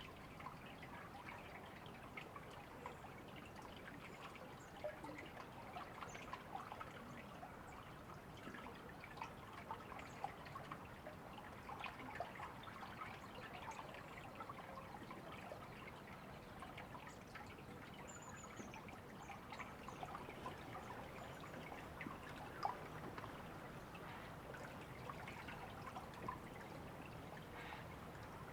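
River water flowing and trickling over stones: a steady, faint rush dotted with many small irregular splashes.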